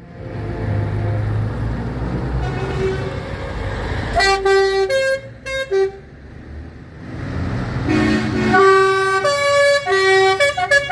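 Diesel lorry engines pulling away, then truck horns sounding: a string of short blasts on several different notes about four seconds in, and a longer run of quick multi-note blasts from about eight and a half seconds.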